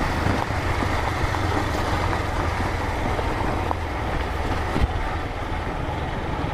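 Motorcycle running steadily under way, its low engine hum mixed with road and wind noise, with one short knock about five seconds in.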